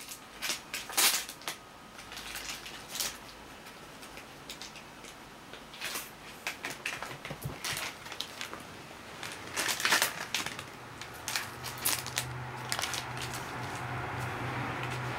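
Plastic and paper packaging crinkling and rustling as it is handled, heard as scattered sharp clicks and crackles. A low steady hum comes in about eleven seconds in.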